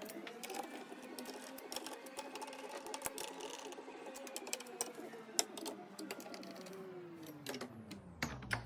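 A small electric motor spins up, runs at a steady pitch with light clicking over it, and winds down about seven seconds in.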